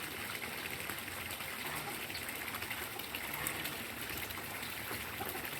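Steady rush of running water at a fish pond, gushing and trickling without a break.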